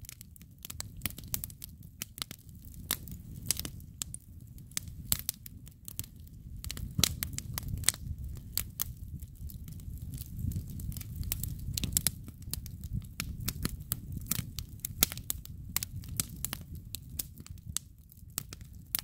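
Wood campfire crackling, with frequent irregular sharp pops and snaps over a low steady rumble.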